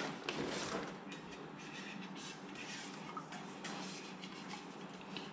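Faint rustling with a few light clicks and knocks from grocery packaging being handled.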